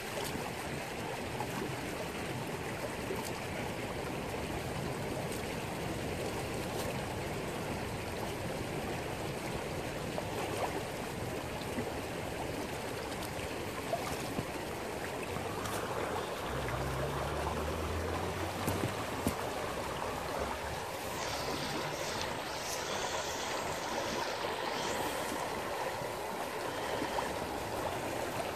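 Shallow creek water rushing and babbling steadily over stones close by.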